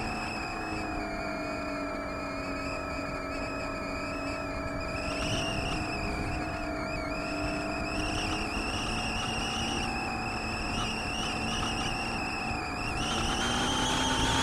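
Radio-controlled flying wing's motor and propeller whining steadily, as picked up by the camera on board, with wind rushing over the microphone. The pitch falls over the first two seconds and climbs again near the end.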